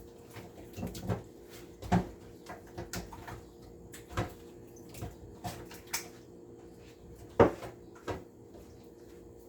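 Kitchen handling noises while seasoning food: scattered light knocks and clicks of containers and utensils, with a louder knock about seven seconds in, over a faint steady hum.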